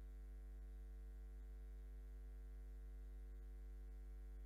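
Faint, steady electrical mains hum with its overtones, and nothing else.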